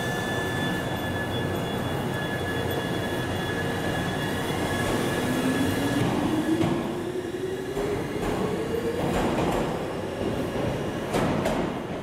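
Toyama Chitetsu 10030-series electric train pulling out of the station. From about five seconds in, the traction motors' whine rises steadily in pitch as it gathers speed, and the wheels click over rail joints near the end.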